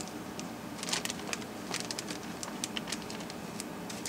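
Light, irregular clicks and crinkles of small plastic butt connectors being handled and picked from a bag, over a steady low hum.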